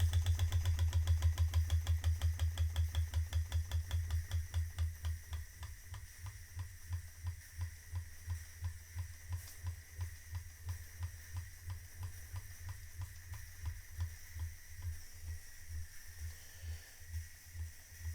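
Empire B-30 toy steam engine running, its beat slowing as it is throttled down from full speed. The strokes fall from a fast, loud patter to about two or three soft beats a second, over a faint steady hiss of steam.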